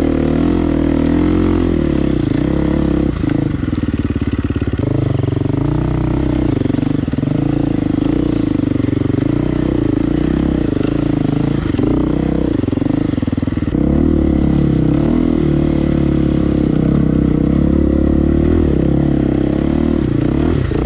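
Dirt bike engine running and revving, its pitch wavering up and down, as the bike struggles stuck on a steep hill climb.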